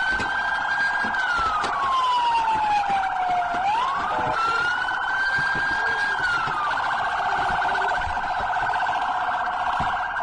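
Police car siren sounding continuously. A wail tone rises, holds, then falls slowly and rises again, over a rapid warbling yelp. The wail drops out about seven seconds in, leaving only the fast warble.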